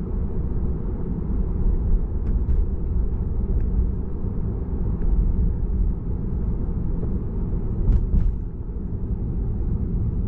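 Road and tyre noise inside the cabin of a Tesla electric car cruising on a rural road: a steady low rumble with no engine note, broken by a few faint clicks.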